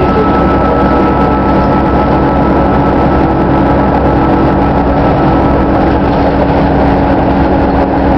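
Steady engine and road noise inside a moving city transit bus, with a low hum and a faint high whine held level throughout.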